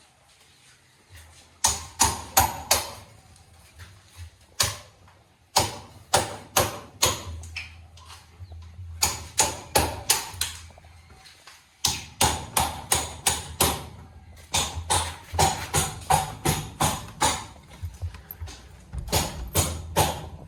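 Hammering: runs of sharp blows, about four a second, with short pauses between the runs and a low hum underneath at times.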